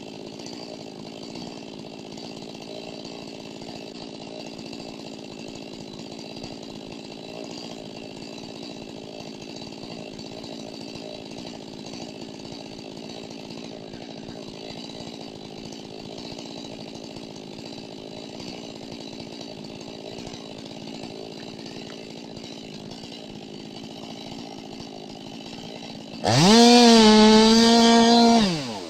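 Chainsaw engine running steadily and fairly quietly. About 26 seconds in, it revs loudly to full throttle, holds for about two seconds, then drops back down near the end.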